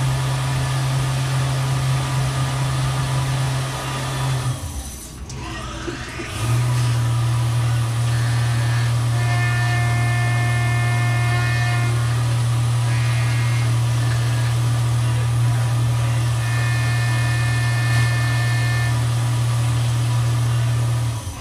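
Tormach CNC mill's spindle running at about 7200–8000 RPM as an end mill takes finishing passes in metal under flood coolant, a steady machine hum with higher cutting tones that come and go twice. About four and a half seconds in the spindle stops for a tool change and spins back up with a rising whine.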